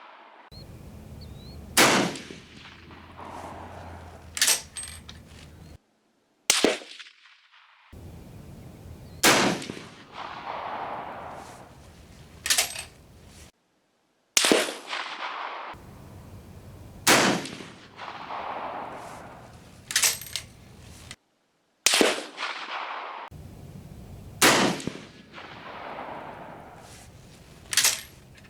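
Swiss K31 straight-pull rifle in 7.5x55 Swiss firing a slow string of shots, about one every two to three seconds, each a sharp crack, some with a rumbling tail. The sound cuts out briefly three times.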